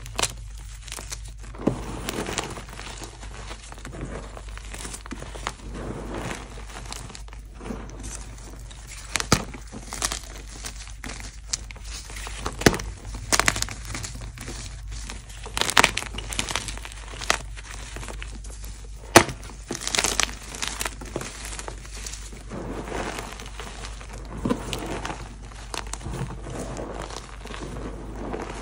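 Hands crushing and crumbling chunks of dried, pasted gym chalk into powder: continuous soft, gritty crunching with scattered sharper cracks as pieces snap. The sharpest crack comes about two-thirds of the way through.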